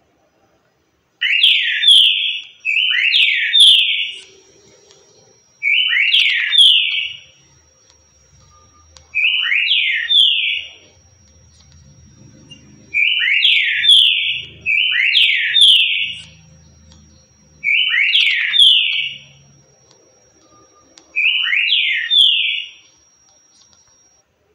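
Green-winged saltator (trinca-ferro) singing its 'currucutil' song type: eight short song phrases, each about a second long, a few seconds apart, two of them coming in quick pairs.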